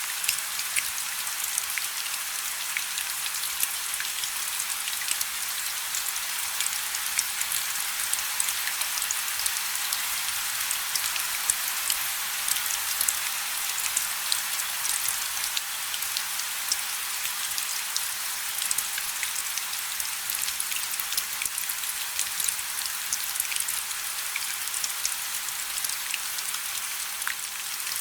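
Steady rain falling: an even hiss with many separate drops hitting sharply.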